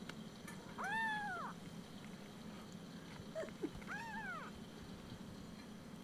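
Four-week-old Siamese kitten meowing twice, about a second in and about four seconds in. Each is a short, high meow that rises and then falls in pitch.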